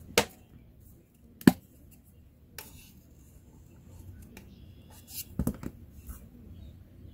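Sharp clicks and knocks of a metal spatula and plastic putty containers being handled on a workbench; the loudest knock comes about one and a half seconds in, with a quick cluster of taps near the end.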